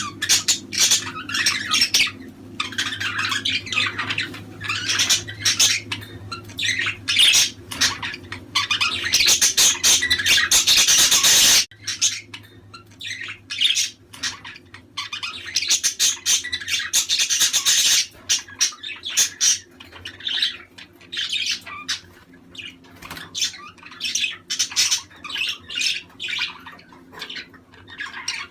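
A flock of budgerigars chattering, warbling and squawking continuously, the kind of budgie chatter played to pet budgies to stimulate breeding. About eleven and a half seconds in, the sound cuts off abruptly and picks straight up again, like a splice in the recording.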